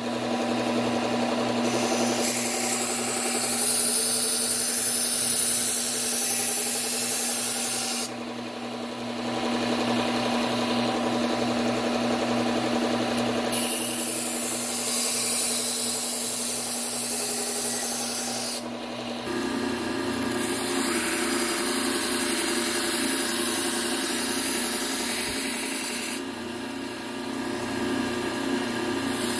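Fillet knife ground edge-trailing on a running belt sharpener: the motor hums steadily and the blade's passes along the belt add a hiss, in several passes of a few seconds each, with a change in the motor's hum about two-thirds of the way through.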